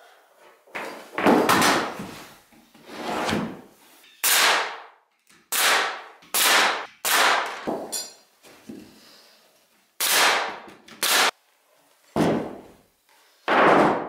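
A series of about a dozen separate knocks and clunks of wooden framing pieces and a window unit being handled and set down on a plywood subfloor, with a short rattle about eight seconds in.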